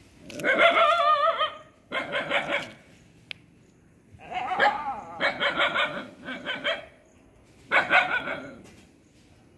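Street dogs barking in four bouts, some calls drawn out into wavering, strained yelps and a quick run of repeated barks in the middle: dogs squaring off against a rival group.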